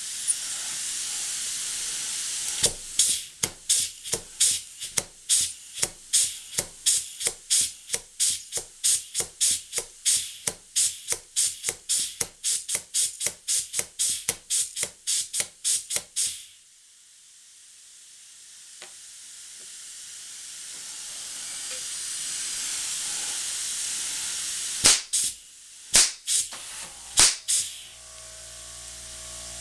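Model steam hammer of the Stuart Turner design striking its anvil in a fast even run of blows, about three a second, over a steady hiss. The blows stop, the hiss fades and builds again, and near the end it strikes three single blows.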